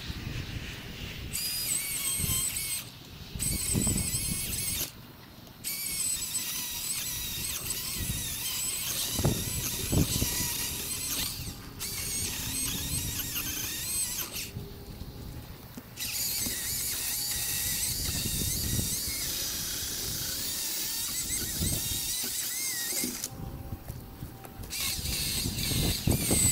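Milwaukee M18 Fuel cordless chainsaw cutting cedar, a high whine that wavers in pitch under load. It runs in long bursts with abrupt stops and restarts as the trigger is released and pulled again, with a few low thumps in between.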